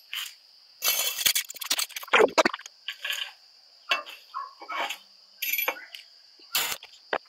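Irregular clinks, scrapes and knocks of a metal utensil working in a frying pan, and of the pan being lifted while the charcoal fire beneath is tended, over a steady high insect chirr.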